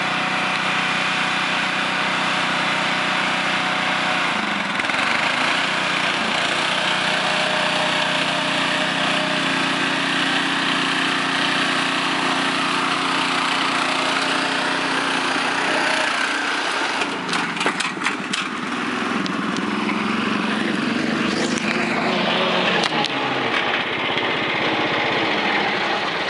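Riding lawn mower engine running hard as the mower climbs a rough dirt slope. About two-thirds of the way through the engine note drops and shifts, with a few sharp knocks and clatters, then the engine keeps running.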